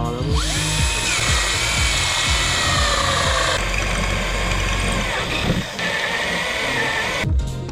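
A power tool spins up and runs under load, its whine climbing quickly and then slowly sagging in pitch, before cutting off shortly before the end. Background music plays underneath.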